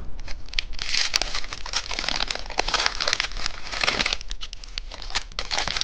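Candy wrapper crinkling as it is handled and opened, a dense run of small crackles and clicks.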